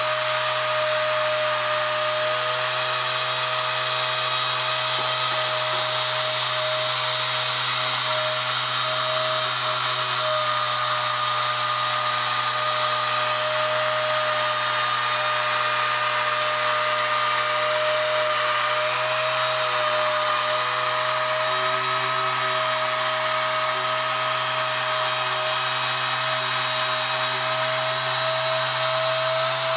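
Hand-held pneumatic polisher running steadily, a constant whine over a hiss, as its pad is worked slowly back and forth polishing stained deposits off a wetted chamber door cover plate.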